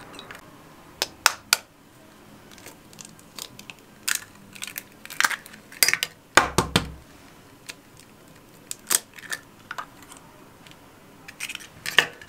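Raw eggs being cracked against a ceramic bowl and broken open: scattered sharp taps and shell crackles, with a duller knock about six and a half seconds in.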